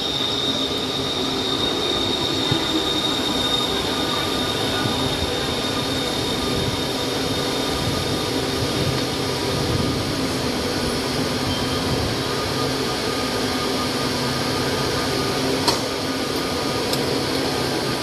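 Bangkok MRT Blue Line electric metro train pulling into an elevated station, with a high squeal that fades over the first few seconds, over a steady rumble and hum. One sharp click comes near the end.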